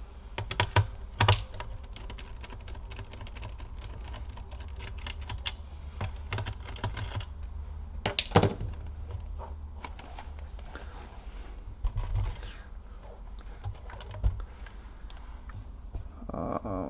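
Scattered small clicks and taps of a laptop's plastic casing and screws being worked on by hand and with small tools, with a few sharper clicks about a second in and around eight seconds in.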